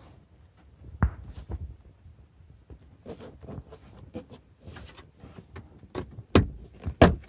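A Lada Vesta's plastic interior trim panel being worked loose by hand, with its rubber seal pulled back. A sharp click about a second in, scattered clicks and scraping, then two loud knocks near the end as the panel comes free.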